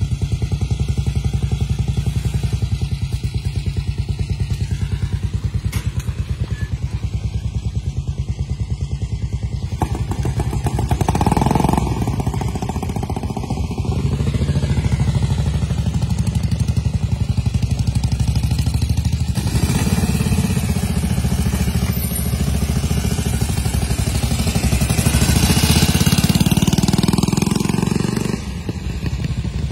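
Vintage motorcycle engines running, with the steady firing of idling machines. From about two-thirds through, an engine revs and pulls away, its note rising. The sound drops off just before the end.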